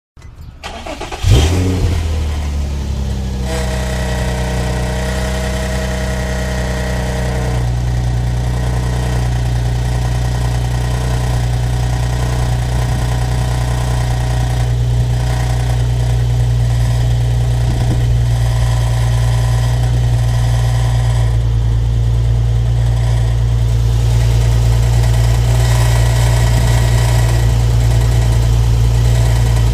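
Nissan 350Z's 3.5-litre V6 cranked by the starter and catching about a second in, then running at a steady idle. A higher tone rides over the idle for a few seconds after start and stops about seven seconds in; the owner calls the startup noise weird.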